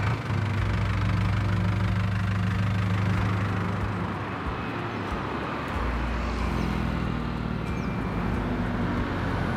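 Road traffic: vehicle engines running close by, a steady low engine hum for the first few seconds, fading, then another engine hum from about six seconds in.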